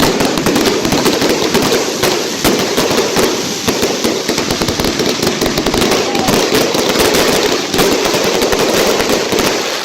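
96-shot firework cake firing a rapid, unbroken stream of loud cracks and pops.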